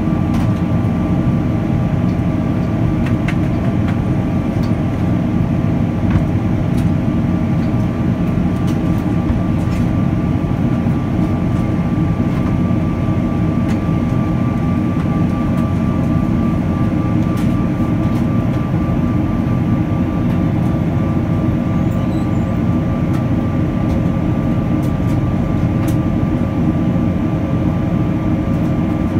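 Cabin noise of a Boeing 777-300 heard from a window seat beside its Rolls-Royce Trent 800 turbofan while climbing after take-off: a steady deep roar with a steady engine whine on a few fixed pitches over it.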